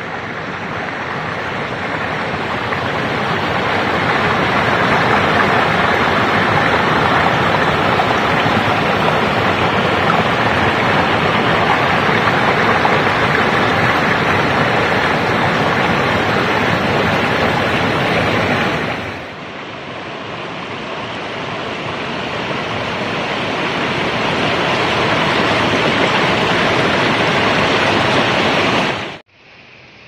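Small waterfall pouring over rocks into a stream pool: a steady, loud rush of water. The rush dips about two-thirds of the way through, builds back up, and falls away sharply just before the end.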